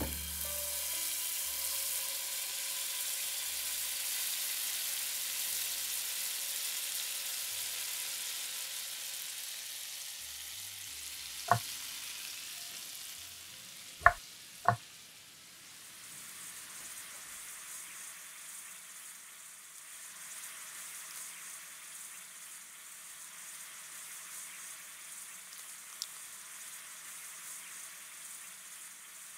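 Whole Korean rockfish sizzling in a hot frying pan, a steady hiss that is strongest at first and dies down after about ten seconds. Three sharp knocks come midway.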